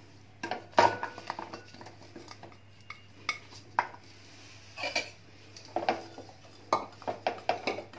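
Pieces of jaggery dropping into a metal pan and a spoon clinking and scraping against the pan and a plastic bowl: scattered knocks and clicks, the loudest a little under a second in.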